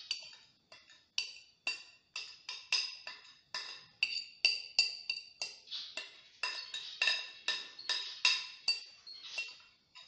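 Wire whisk beating batter in a glass bowl, its wires knocking against the glass about two to three times a second, each knock ringing briefly.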